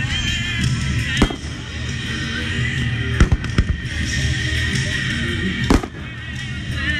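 Aerial fireworks shells bursting overhead: about four sharp bangs, two of them close together near the middle, over steadily playing music.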